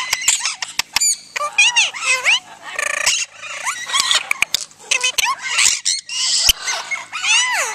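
Parrots chattering: a run of sharp clicks, then from about a second and a half in, a stream of squeaky chirps and whistles that swoop up and down, from an Indian ringneck parakeet and a Quaker parrot.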